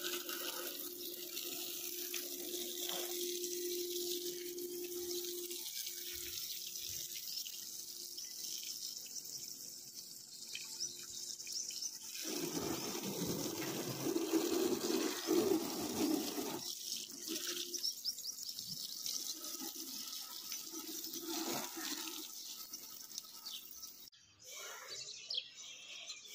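Water from a garden hose spraying against a car's side and bumper and splashing onto grass, a steady rushing hiss that grows louder for a few seconds midway.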